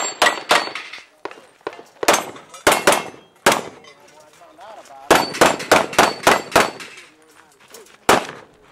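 Handgun shots fired in quick strings, about two, then four, then seven in a row, then one more, with short pauses between, and a metallic clang of steel targets ringing when hit.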